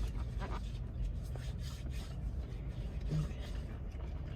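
Knife and fork cutting a waffle, faint scraping and rubbing against the plate, over a steady low background hum. A brief low vocal sound about three seconds in.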